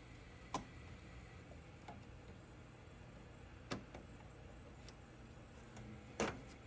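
Three sharp clicks spread over a few seconds against a faint steady background: plastic retaining clips being pried loose from a truck's front grille.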